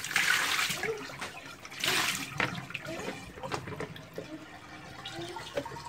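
Water poured from a plastic basin splashing over vegetables held in the hands as they are rinsed, with a second splash about two seconds in; after that come small knocks and handling sounds of the wet vegetables.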